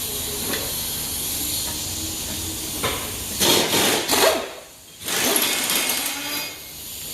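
Pneumatic impact wrench running in two loud bursts around the middle, over a steady air hiss, working the wheel-lock key to loosen a locking lug nut on a car wheel.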